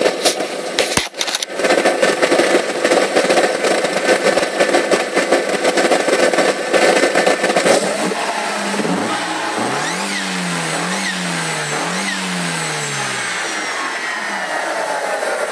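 SEAT León Cupra's turbocharged petrol engine running, then revved three times in quick succession about two thirds of the way through. A whine rises and falls with each rev. The owner calls it a turbo whine but has not been able to pinpoint its cause.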